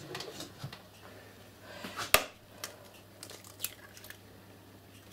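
An egg being cracked open for the meat mixture: one sharp tap about two seconds in, followed by a few faint crackles and ticks of the shell as it is pulled apart.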